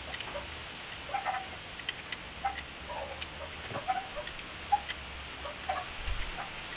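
Light metallic clicks and ticks of a small wrench working the oil filter cover bolts on a Suzuki Raider 150 engine, as the bolts are run in and tightened.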